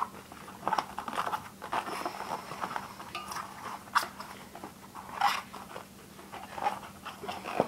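Hands working a rubber BMX inner tube and tire on the rim: irregular rubbing, crinkling and small clicks.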